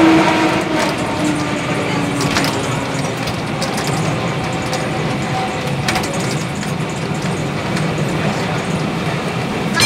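Vintage tramcar TW 206 running along street track, a steady rumble of wheels on rail and the old car body, with a few sharp clicks and knocks along the way.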